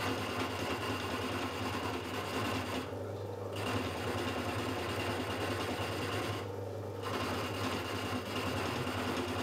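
1930s Myford metal-turning lathe, which the owner takes for an ML4, running steadily on its belt-driven single-phase electric motor with a constant hum while the tool rough-cuts an aluminium alloy bar. The higher cutting noise drops out briefly twice, about three and six and a half seconds in.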